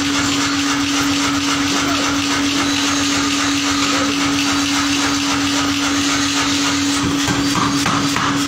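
Workshop machinery running steadily: a motor's constant hum with a whirring noise over it, with no clear hammer blows.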